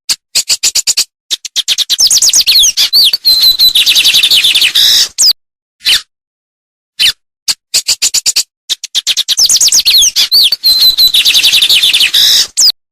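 A songbird singing a fast, varied song of rapid chirps, trills and whistles, in two long phrases about seven seconds apart with single short chirps between them.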